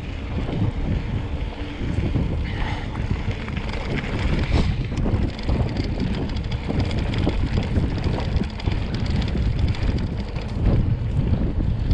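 Wind rushing over the microphone of a camera riding on a moving mountain bike, a continuous low rumble.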